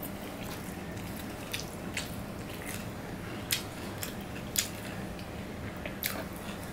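Eating rice by hand from a stainless steel plate: fingers mixing and squeezing rice with fried egg and onion, with a few scattered short, sharp clicks.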